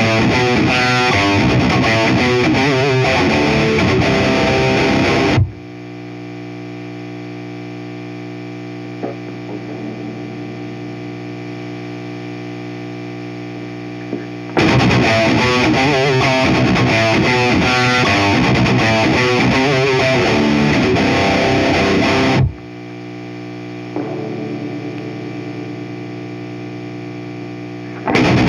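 High-gain distorted electric guitar through an EVH 5150III 100S Stealth tube head's channel two and a 4x12 cabinet, in Drop B on a Gibson Custom 1959 Les Paul reissue. Fast riffing is broken twice by a chord left to ring for several seconds.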